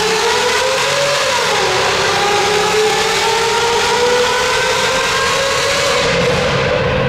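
Mercedes-Benz W140 S600's V12 with a Brilliant aftermarket exhaust accelerating hard in a tunnel, heard from inside the cabin. The revs climb, fall at an upshift about a second and a half in, then climb steadily again.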